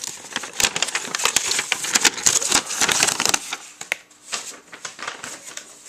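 Paper and plastic packaging crinkling and rustling as it is handled, a dense run of crackles for about three seconds, then fainter, scattered rustles.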